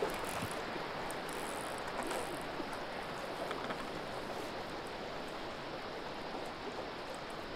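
Steady rush of a fast river current. There is a short splash right at the start as the hooked Atlantic salmon breaks the surface.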